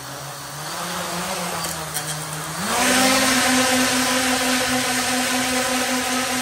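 Quadcopter's brushless motors and propellers spinning up with a rising whine. About three seconds in the pitch steps up sharply as the throttle is raised, then holds steady at the higher speed.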